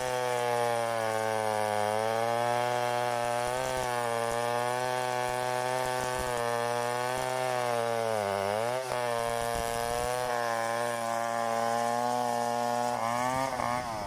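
Stihl 070 two-stroke chainsaw running at high revs while ripping through a java plum log. Its engine note sags briefly under load about two seconds and eight seconds in, then falls near the end as the throttle comes off.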